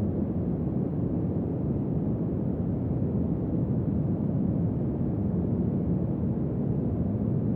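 Steady deep noise bed, a dark even rush weighted to the low end with little high hiss, unchanging throughout.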